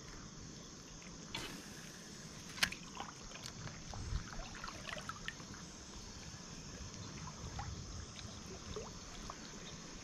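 Shallow creek water trickling and lapping, with scattered faint ticks and one sharper click about two and a half seconds in.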